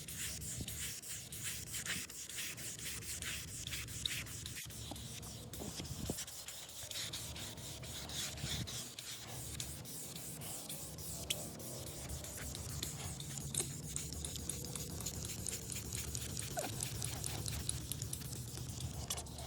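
Fine 3,000-grit sandpaper rubbed by hand up and down over a plastic headlight lens, a steady run of rasping strokes.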